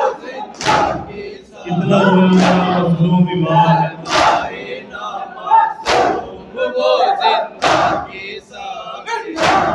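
Mourners doing matam: a crowd's hands striking their chests together in unison, a sharp loud slap about every two seconds, with the group's voices chanting between the strikes.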